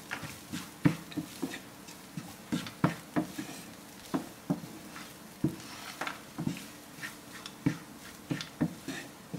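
Wooden spatula knocking and scraping against a nonstick frying pan as cooked rice is stirred and broken up in it, with irregular knocks a few times a second.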